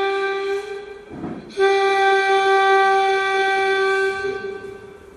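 Ship's horn sound effect: a steady, high-pitched horn-like blast that breaks off about a second in, followed by a second long blast that fades away near the end.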